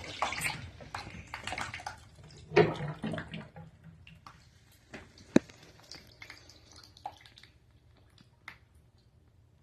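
Water running and splashing in a bathtub, fading over the first few seconds, then scattered drips and small knocks, with one sharp knock about five seconds in.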